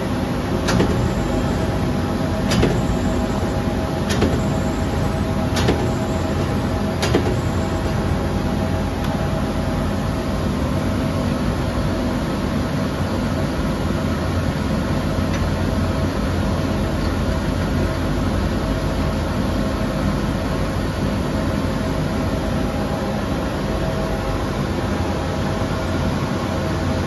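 Steady hum of running industrial machinery, with five sharp clicks about a second and a half apart in the first eight seconds.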